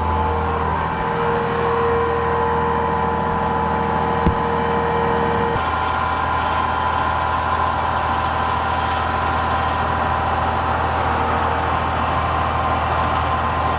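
Heavy vehicle's engine idling steadily with a low hum and steady tones above it, and a single sharp click about four seconds in.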